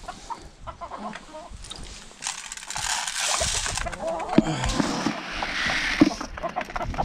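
Chickens clucking as they are fed corn, with short calls now and then, over a loud rustling noise that starts about two seconds in.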